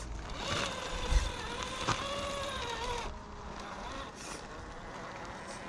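Axial Early Bronco RC crawler's electric motor and drivetrain whining under throttle, the pitch rising and falling, with a couple of sharp knocks. It eases off to a quieter hiss about three seconds in.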